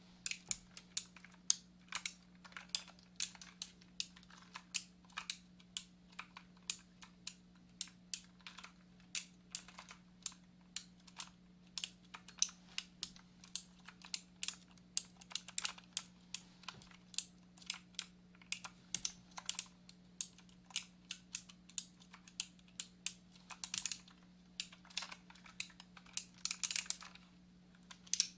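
Typing on a computer keyboard: quick, irregular key clicks, several a second, with a faint steady low hum underneath.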